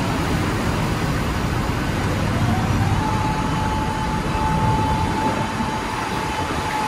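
Deep-sea trawler's machinery running with a loud, steady low rumble. About two and a half seconds in, a whine rises in pitch and then holds steady.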